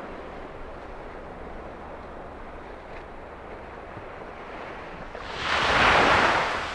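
Ocean surf washing on a beach, a steady rush that swells much louder for a second or so about five seconds in as a wave comes through.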